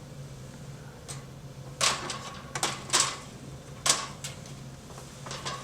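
Toolless server rack rails, sheet-metal parts clicking and clacking as they are fitted and snapped into the rack. There are about half a dozen sharp metallic clicks and knocks, the loudest about 2, 3 and 4 seconds in, over a low steady hum.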